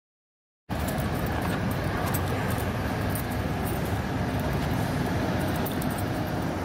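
Steady low rumble of vehicle engines and traffic. It cuts in abruptly out of silence under a second in, with a few faint steady tones above it.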